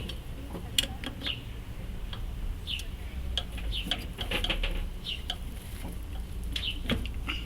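Light clicks and clinks of small metal brake parts being handled, with short high chirps coming every second or so over a steady low hum.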